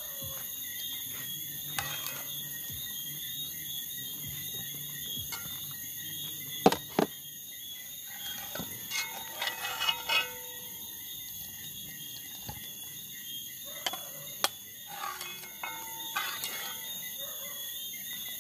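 Steady high-pitched chorus of crickets and other night insects. Two sharp knocks close together come about a third of the way in, and one more comes about three quarters through.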